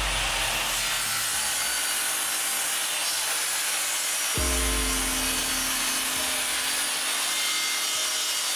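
Table saw blade cutting through a plywood piece, a steady, dense sawing noise that holds without a break.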